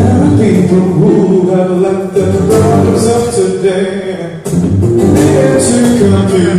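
Live acoustic guitar played with a singer's voice over it.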